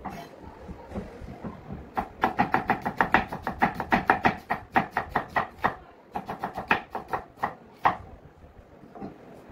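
Kitchen knife slicing a red onion on a wooden chopping board: quick, even strokes about five a second, in two runs with a short break just past the middle.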